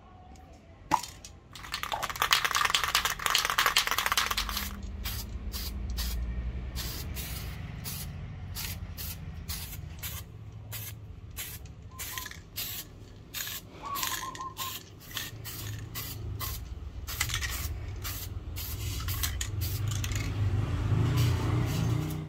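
Aerosol spray paint can spraying paint onto a masked steel axe head: a sharp click about a second in, then one long spray of a couple of seconds, followed by many short spurts of spray.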